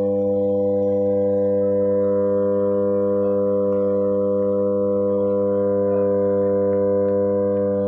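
A 300 MVA power transformer humming steadily: a deep, even hum with a stack of higher tones above it that does not change.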